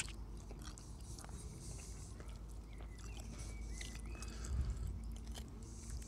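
A man chewing a mouthful of salad, with small clicks and scrapes of a fork against the plate.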